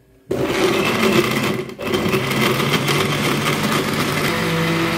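Electric countertop blender switched on about a third of a second in, its motor running steadily as it blends dates and milk, with a brief dip in level a little before the two-second mark.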